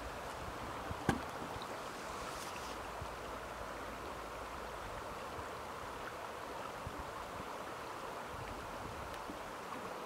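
Shallow river rippling steadily over a stony bed, with one sharp click about a second in.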